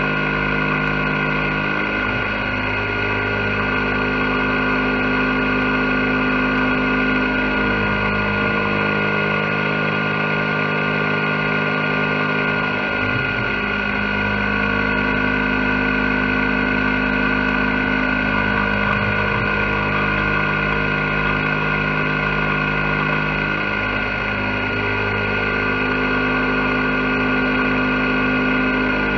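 CNC milling machine cutting a pocket in an aluminium block with an end mill under flood coolant: a steady machine whine of several tones from the spindle and stepper-driven axes. The lower tones change pitch a few times as the tool moves.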